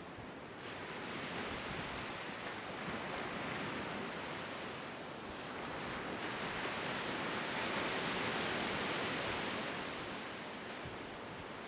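Waves breaking on a shore: a steady wash of surf that swells and eases in slow surges, loudest about two-thirds of the way through.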